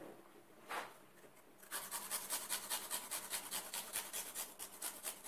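Fresh garlic cloves grated on a small hand-held metal grater: one short scrape about a second in, then a long run of quick, even rasping strokes.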